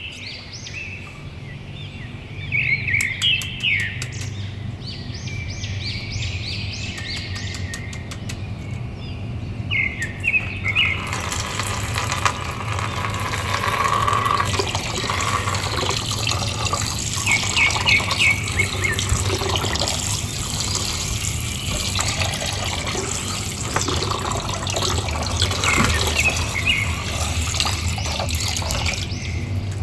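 Water sloshing and a water-filled plastic bag being squeezed and handled over a basin, growing louder and busier from about ten seconds in. Small birds chirp in the background throughout.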